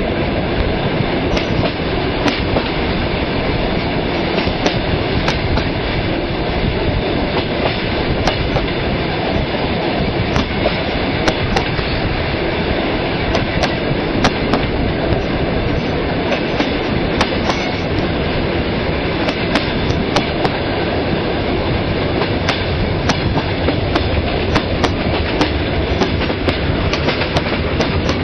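Railway wagon wheels clacking over rail joints over a steady rolling rumble, with sharp knocks coming irregularly throughout.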